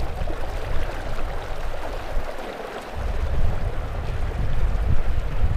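Water churning and splashing in the propeller wash and wake of an aluminium jon boat pulling away under an ePropulsion Spirit 1.0 Plus electric outboard; no motor tone stands out above the water. A low wind rumble on the microphone returns strongly about three seconds in.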